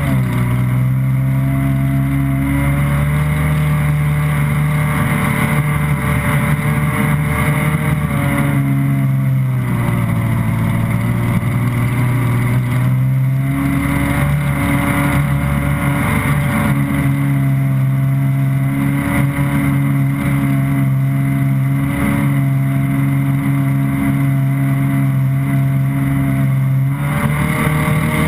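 Stand-up jet ski's engine running steadily under way, with water spray hissing against the hull. About ten seconds in the engine eases off and its pitch drops, then it picks back up a few seconds later and holds steady again.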